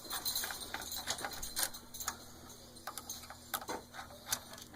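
Irregular light clicks and ticks of a screwdriver and small screws as a PlayStation 4 console is unscrewed and taken apart.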